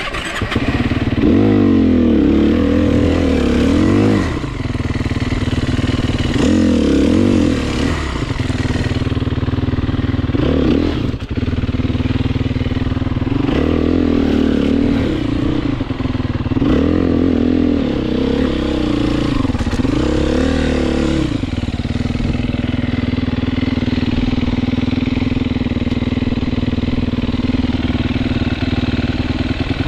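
Dirt bike engine revved in about six rising-and-falling bursts over the first twenty seconds, then holding a steady, even note.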